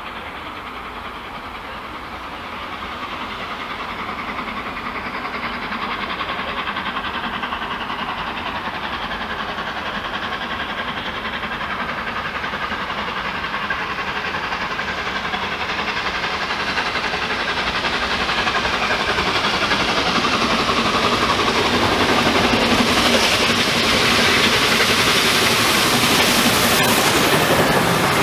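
Peppercorn A1 Pacific steam locomotive 60163 Tornado approaching with its train, growing steadily louder. It is loudest near the end, a broad rush of steam and running noise as the engine passes close by.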